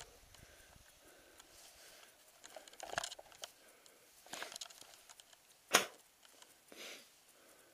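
Mountain bike rolling quietly along a dirt trail, with a few short clicks and rattles from the bike over bumps; the sharpest click comes about three-quarters of the way through.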